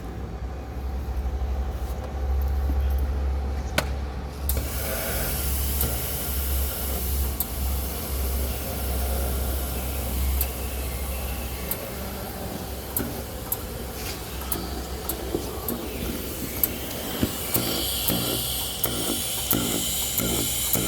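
Electric arc welding crackling and sizzling, with scattered sharp pops. It starts about four seconds in and runs over a steady low hum.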